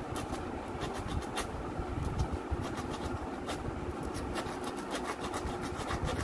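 Sandpaper scraping quick, uneven strokes across the metal switch contacts of an electric motor's end plate, cleaning rust off them, over a steady low rumble.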